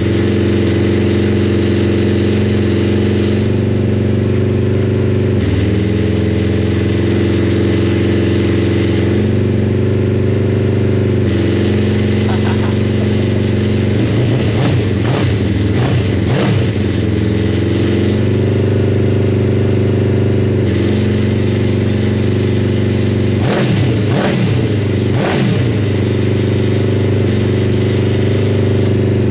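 Honda CBR1000RR inline-four motorcycle engine running steadily while the buggy is run through its gears with the rear wheels spinning freely off the ground. It is revved up and back down twice, once around the middle and again about three quarters of the way through.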